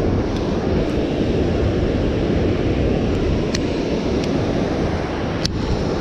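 Steady rushing of water pouring over a dam spillway, with a few short clicks in the second half, the sharpest about five and a half seconds in.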